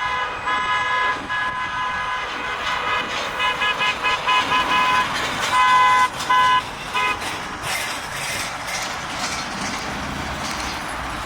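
Vehicle horns honking in a long, irregular run of toots for about seven seconds, then steady road traffic noise.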